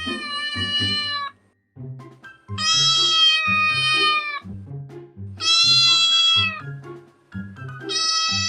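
Cat meowing: long, drawn-out meows, each holding a fairly steady pitch for one and a half to two seconds, repeated about every two and a half seconds over background music.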